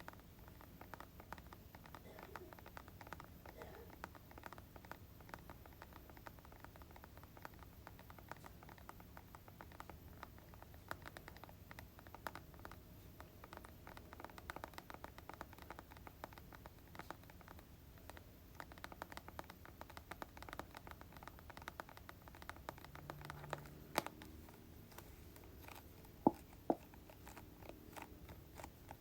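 Slow ASMR tapping and scratching on hair-product containers: a steady run of soft, light taps, with a few sharper, louder taps in the last few seconds.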